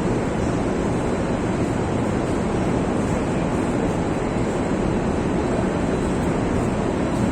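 Steady rushing noise with a faint low hum beneath it, even throughout with no distinct events.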